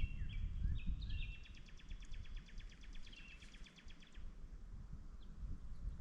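A songbird singing: a few short whistled notes, then a fast, even trill that stops about four seconds in. A low rumble runs underneath.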